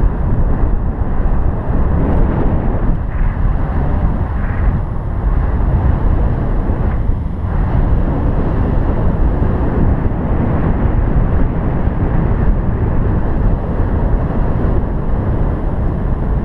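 Wind rushing over the microphone of a paraglider pilot's camera in flight: a steady, loud, deep rumbling hiss.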